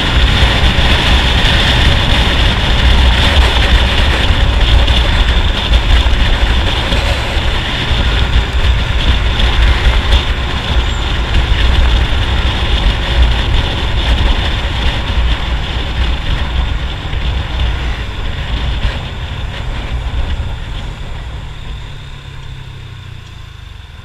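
Wind rushing over the microphone of a riding scooter, with the scooter's engine running at cruising speed underneath. Over the last few seconds the wind and engine die down as the scooter slows.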